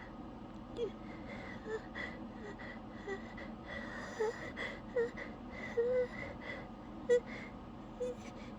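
A woman's short, high whimpering gasps, about one a second, as she struggles to hold back an oncoming sneeze.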